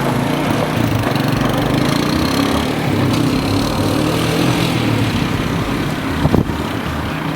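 1985 Honda Big Red three-wheeler's single-cylinder four-stroke engine running steadily, with one short tick about six seconds in. No clunk is heard from the freshly replaced drive chain.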